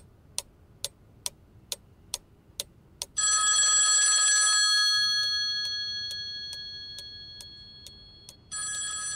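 A clock ticking a little over twice a second, then the bell of a rotary-dial telephone ringing: one ring of about a second and a half a little after three seconds in, its tone dying away slowly, and a second ring starting near the end.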